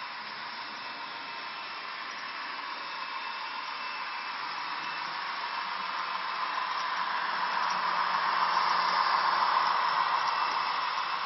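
TT-scale model train running past on the layout: the whir of its electric motor and the rolling of its wheels on the rails, a steady noise that swells as the train comes close, peaking near the end, then eases off.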